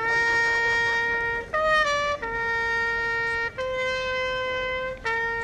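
Solo trumpet playing a slow melody of long held notes, six in all, with a quick higher pair between the first and second long notes.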